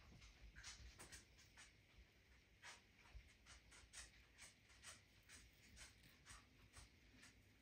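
Near silence with faint, short scratchy rubs about twice a second: fingertips rubbing and turning a small smooth pebble.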